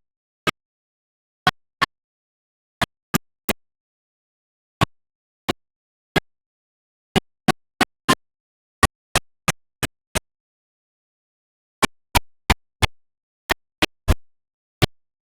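Sharp isolated clicks at irregular intervals, a little under two a second, with complete silence between them.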